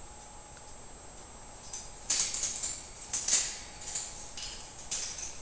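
Parrots scuffling: a run of short, scratchy rustles, like feathers and claws scrabbling, starting about two seconds in, after a quiet start.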